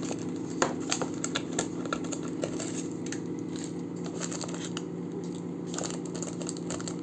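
Plastic seasoning and sauce sachets crinkling and rustling as fingers pull them out of a paper instant-noodle cup, with many small scattered crackles and clicks, over a steady low hum.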